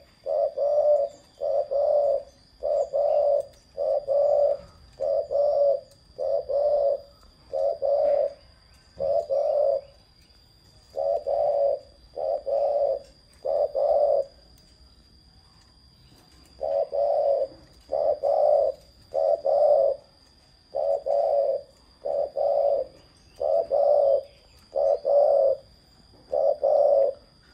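Spotted dove cooing: a long series of low, evenly paced coos that breaks off briefly about ten seconds in and for a couple of seconds around the middle, then carries on.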